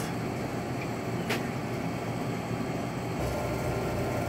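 Steady mechanical hum and hiss of room background, with one sharp click about a second in. The low hum grows a little stronger after about three seconds.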